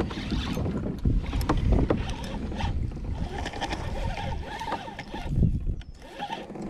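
Knocks, thumps and rustling from handling in a fishing kayak, with some water movement, as a bass is landed and brought aboard.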